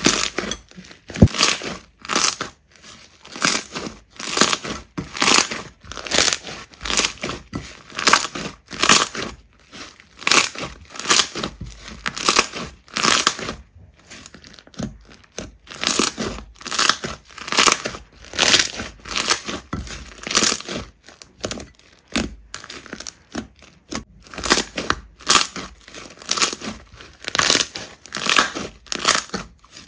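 Hands squeezing and stretching slime, giving repeated sticky crackles and pops about once or twice a second, with a brief pause near the middle.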